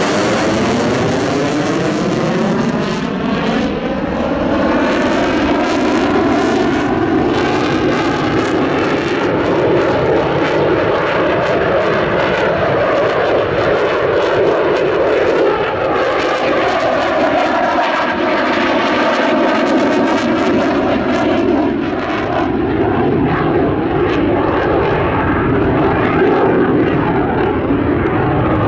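Eurofighter Typhoon's twin Eurojet EJ200 turbofan engines running loud as the fighter manoeuvres overhead: a constant jet rush whose tone keeps sweeping up and down as the aircraft turns and moves, growing duller near the end.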